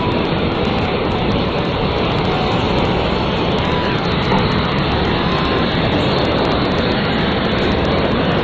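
Cabin cruiser's engine running hard, mixed with rushing and breaking surf water as the boat drives through the waves: a loud, steady noise that does not let up.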